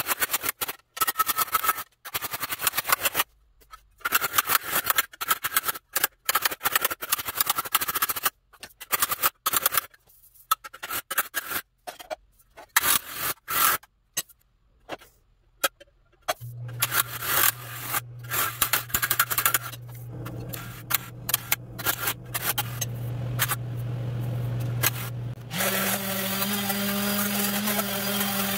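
Rapid hammer blows on thin steel sheet held against a dolly in a vise. This is hammer-on-dolly work stretching the panel into a dome, and the blows come in quick runs with short pauses. About halfway through, a handheld electric sander starts running with a steady hum, and its pitch steps up about three seconds before the end.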